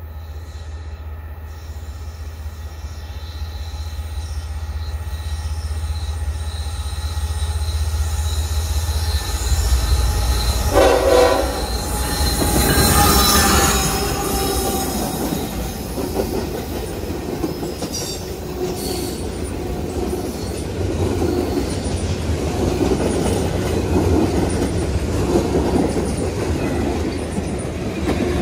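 Norfolk Southern train 126 approaching and passing. The diesel locomotive rumble grows louder and peaks about twelve seconds in as the locomotives go by. The cars then roll past with steady clickety-clack wheel noise.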